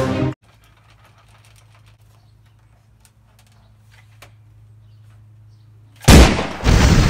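Background music cuts off, leaving a low steady hum with a few faint clicks. About six seconds in comes a sudden, very loud bang like a blast or gunshot, a second burst close behind, and a rumble that dies away.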